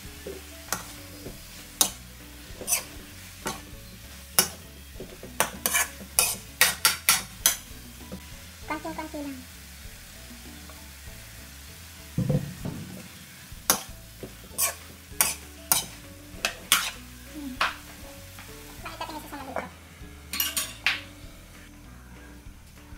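Metal ladle scraping and clinking against a wok in irregular strokes while stir-frying shredded green papaya in soy sauce, with a sizzle underneath and a dull knock about halfway through.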